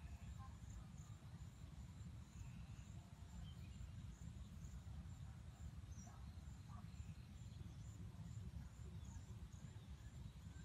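Faint field ambience: a thin, high insect trill with a regular pulse, a few scattered faint bird chirps, and a low steady rumble underneath.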